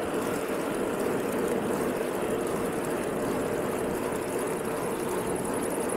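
Steady rolling and wind noise of a bicycle ridden fast along an asphalt road, an even rush with no separate events.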